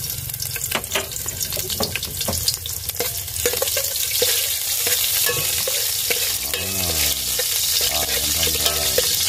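Onions frying in hot oil in a pan: a steady sizzle, with a utensil stirring and clicking against the pan.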